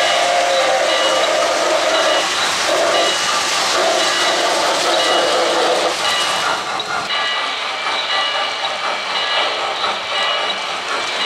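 O-gauge model steam locomotive's onboard sound system blowing its steam whistle, a long blast then shorter blasts, over a steady hiss of steam sound and running noise. The whistle stops about six seconds in and the hissing, rumbling running sound carries on as the locomotive approaches.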